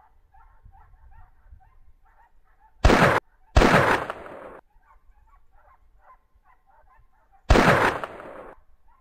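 Three shotgun shots, the first two close together about three seconds in and a third about four seconds later, each ringing and echoing off the valley sides. Behind them, hunting dogs bay steadily in the distance, giving voice on a wild boar.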